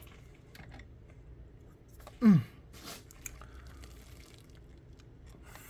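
Faint small clicks and rattles of a small diaphragm pump being handled for disassembly, with one short, loud sound falling steeply in pitch about two seconds in.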